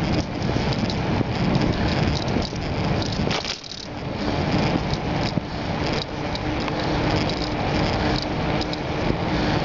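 Riding a bicycle on smooth asphalt: steady wind rush over a bike-mounted camera's microphone, with tyre noise and continual light rattling and clicking from the bike. The noise dips briefly about a third of the way in, and a faint steady hum joins about halfway.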